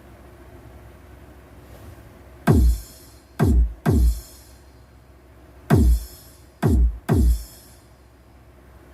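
Electronic remix dance music played through the amplifier and speakers: after a quiet start, six deep kick drum hits with a quickly falling pitch, spaced one, two, one, two.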